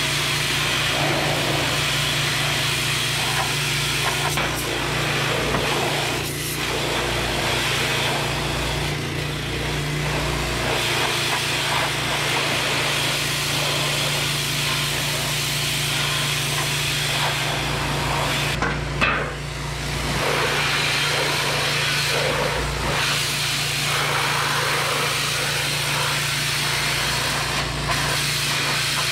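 Pressure washer running steadily with a constant hum, its water jet hissing against a steel piece and washing off rust and loosened paint left by electrolysis. The spray briefly eases about two-thirds of the way through.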